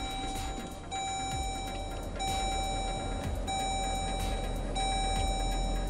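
Dodge Durango's dashboard warning chime sounding on switch-on: a steady beep tone held about a second at a time and repeated five times with short gaps, over a low steady rumble.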